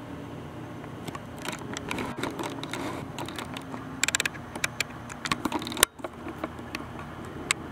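Scattered clicks and ticks of handling noise on a handheld camera, with a quick rattle of clicks about four seconds in and one sharp click just before six seconds, over a faint steady low hum.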